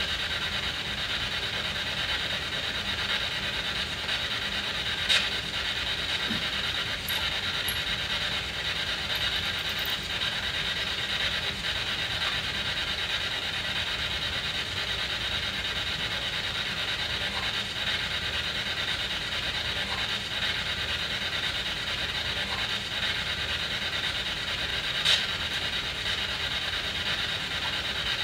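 SB7 spirit box sweeping radio frequencies: a steady hissing static, with two short clicks, about five seconds in and again near the end.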